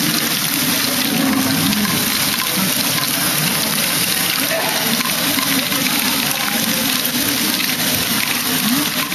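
LEGO Great Ball Contraption modules running: many small plastic balls rattling and rolling through motor-driven lifts and chutes, making a steady dense clatter. Indistinct voices murmur behind it.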